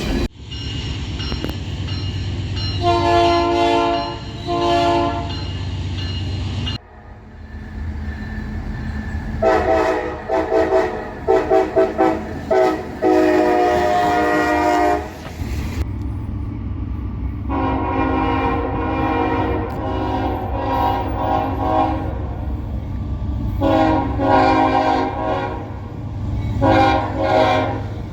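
Locomotive air horns played in a horn show over the low rumble of passing trains, in three recordings cut together. First come two short blasts, then a run of quick blasts ending in a longer one, then a long blast followed by two shorter ones.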